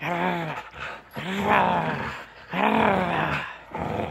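A dog growling in play while tugging a rope toy: a series of drawn-out growls, about one a second, each rising and falling in pitch.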